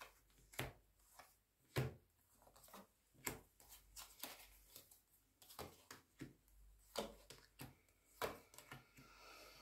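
Tarot cards being handled on a table: a dozen or so soft taps and snaps at irregular intervals, the loudest about two seconds in.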